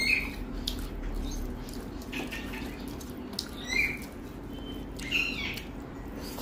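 Short high-pitched calls from a small animal, four of them a second or two apart, over a steady low hum.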